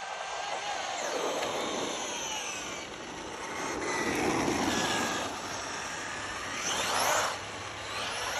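Traxxas Maxx Slash RC truck's brushless motor and drivetrain whining in repeated bursts of throttle. The pitch rises and falls with each burst. The steepest and loudest rise comes about seven seconds in and cuts off sharply.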